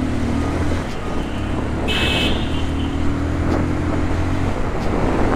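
Motorcycle engine running steadily at cruising pace, with road and traffic noise around it. About two seconds in there is a short, high beep.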